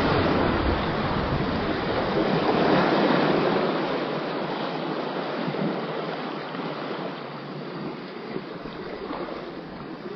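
Ocean surf washing and splashing against the rocks of a breakwater, a steady rushing that slowly grows quieter. Wind buffets the microphone for about the first second.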